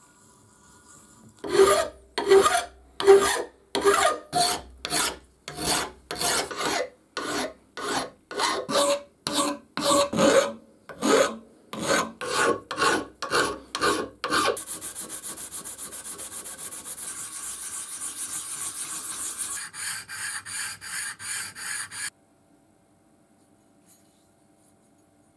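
Hand file rasping across the edge of a cast-iron Beverly shear lever, in separate push strokes about two a second. Partway through it changes to a quicker, finer, higher-pitched rasping for several seconds, then stops.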